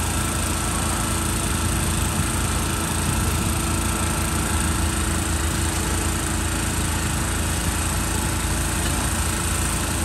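Steady mechanical hum and rush of the electric blower fan that forces air into the charcoal wok stove. It runs unchanged and drowns out most other stall sounds.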